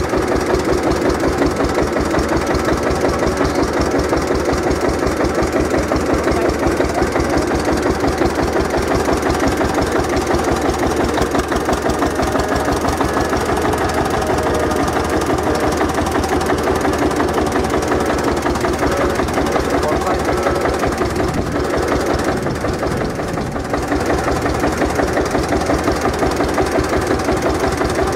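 Vintage tractor engine idling steadily with an even, rapid beat.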